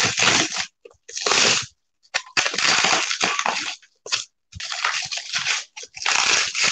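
Plastic bubble wrap crinkling and crunching as it is handled and pulled off a stack of notebooks. It comes in irregular bursts of about a second each, with short gaps between.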